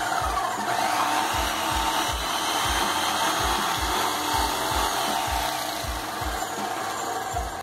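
Graco Magnum LTS 15 airless paint sprayer running while water is flushed through the gun with the tip off: the piston pump knocks about twice a second under a steady rush of water jetting into a bucket.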